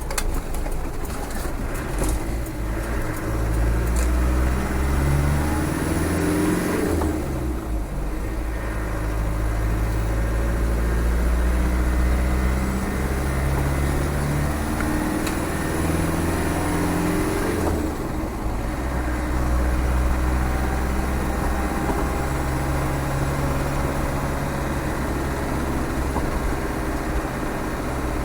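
Freshly rebuilt Land Rover 300Tdi 2.5-litre turbo diesel running under way, its note climbing and then dropping back twice, about seven and about eighteen seconds in, before holding steady.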